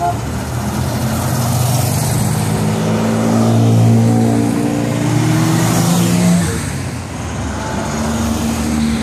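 Classic cars driving past one after another, their engines running steadily, loudest about four seconds in.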